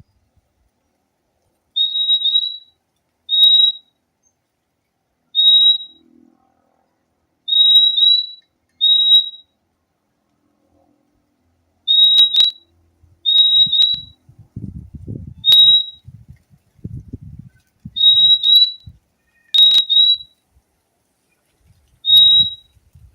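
Purple-throated euphonia (fim-fim) calling: short, high whistled notes, often in quick pairs, repeated every second or two with pauses between. In the second half, low rumbling noise and a few sharp clicks sound under the calls.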